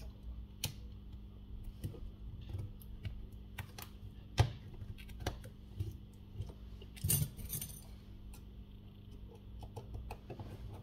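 Small clicks and taps of a thin metal shield plate being fitted and pressed down onto a smartphone's circuit board, with the sharpest click about four seconds in and a brief louder scuff around seven seconds.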